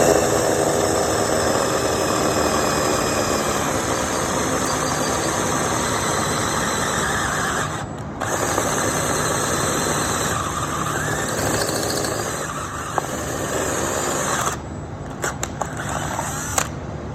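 An electric power tool working sheet metal: the motor spins up with a rising whine, then runs under load with a harsh hiss. It stops briefly about eight seconds in, runs again until about two-thirds of the way through, and a few light clicks follow near the end.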